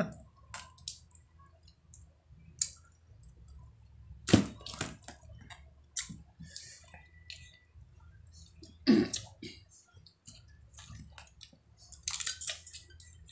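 Mud crab shell being cracked and picked apart by hand while eating: scattered sharp clicks and crunches of shell, with two louder cracks about four and nine seconds in, and some chewing.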